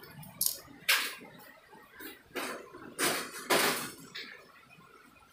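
About six short clattering knocks over four seconds, as of plastic toy cars being knocked and crashed together.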